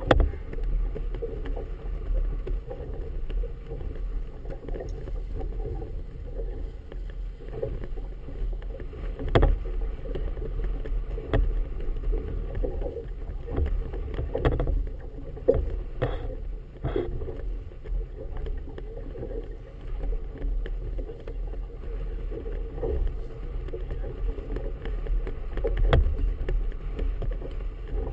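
Choppy harbour water lapping and slapping against the hull of a small moored boat, with a steady low rumble of wind on the microphone. Occasional sharp knocks stand out, several of them about halfway through.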